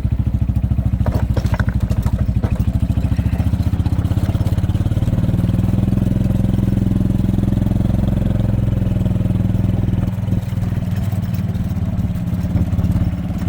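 A vehicle engine running steadily, picking up a little speed about four seconds in. A few knocks or rattles sound about a second in.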